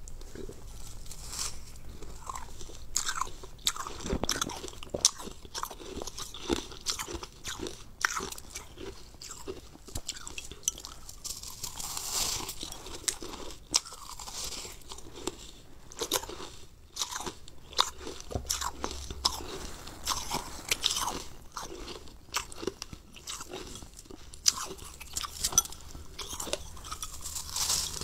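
Crumbly frozen ice being bitten and chewed: a dense, irregular run of crisp crunches and crackles as chunks are bitten off and crushed between the teeth.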